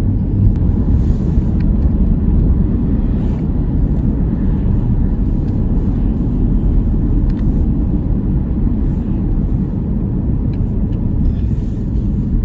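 Steady road noise of a moving car heard from inside the cabin: a low, even rumble of tyres and engine.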